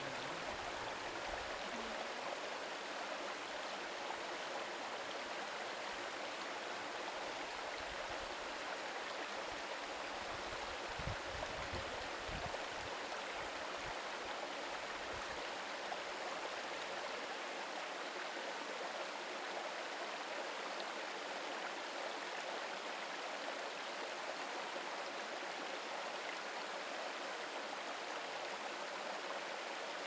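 Mountain stream running into a rock pool: a steady rush of water, with a few low rumbles around the middle.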